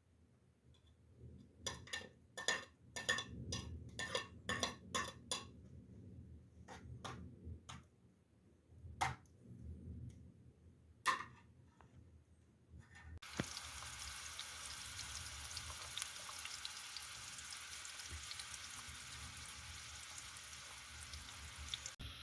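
A run of sharp knocks and clinks from cooking utensils, about ten in quick succession, then a few spaced apart. About thirteen seconds in, food frying in a hot pan starts sizzling suddenly and keeps up steadily.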